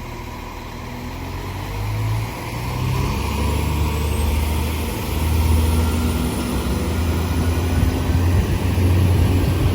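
A two-unit NIR Class 3000 (C3K) diesel multiple unit's underfloor diesel engines running as the train moves through the crossing. The sound grows louder, with the engine note stepping up about two seconds in and swelling again about halfway.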